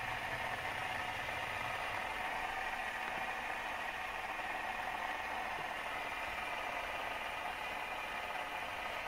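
Fidget spinner spinning on a tabletop, its bearing giving a steady whir.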